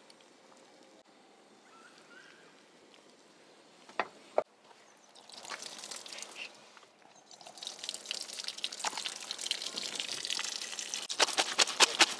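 Water and freshly boiled naengmyeon noodles pour from a plastic tray into a collapsible silicone colander, draining with a steady splashing hiss that grows stronger about halfway through. Two sharp clicks come about four seconds in. Near the end a quick run of wet crackles sounds as the noodles are worked by hand in the colander.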